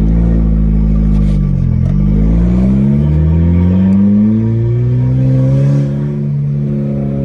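Straight-piped VW GTI engine and exhaust pulling through the gears, heard from inside the car, running on fresh spark plugs and a new coil pack. The pitch climbs, dips at a shift about a second and a half in, climbs again, then drops at another shift a little past halfway and holds nearly steady.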